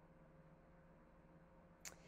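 Near silence: room tone with a faint steady hum, and one brief click near the end.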